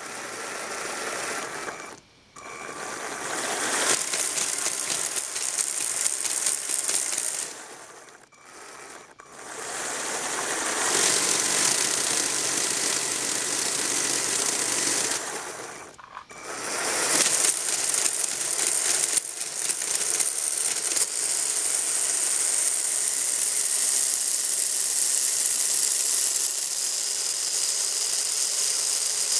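Lego Technic flywheel governor driven at high speed by a Power Functions L-motor geared up 20:12 and 36:12: a fast whirring, rattling clatter of spinning plastic gears and parts. It cuts out briefly a few times in the first half and spins back up each time, then runs on steadily.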